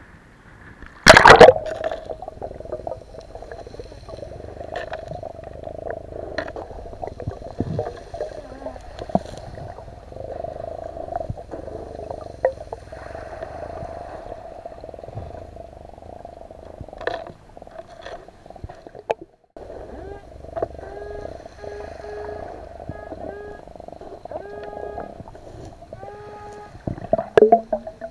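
A loud splash as the diver goes under, then muffled underwater noise with a steady hum. In the last third, short repeated beeps at a few pitches, some bending upward, typical of an underwater metal detector (Minelab Excalibur II) sounding over a target, here a coin; a few loud knocks of pebbles being handled near the end.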